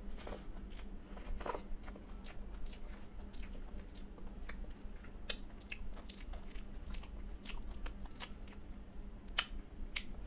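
Close-miked chewing of a handful of rice and mashed okra, with many short wet mouth clicks and smacks scattered through, while fingers pick up and mix more food on the plate.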